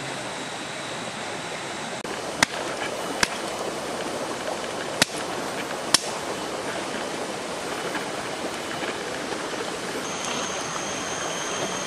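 Wood campfire burning: a steady rushing hiss with four sharp crackling pops between about two and six seconds in.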